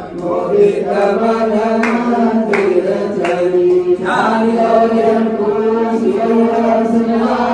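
A group of worshippers, mostly women, singing a Hindu devotional hymn together in unison. A few sharp strikes come through about two to four seconds in, roughly two-thirds of a second apart.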